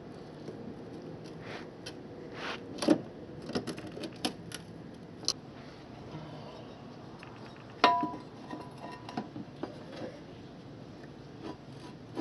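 Metal hardware and tools clinking and knocking while side-step brackets and bolts are handled, a series of sharp clicks and clanks. About eight seconds in, a louder metal clang rings briefly.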